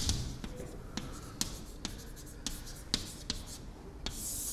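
Chalk writing on a chalkboard: a string of sharp taps and short scratches as letters are chalked, then a longer scraping stroke near the end as the word is underlined.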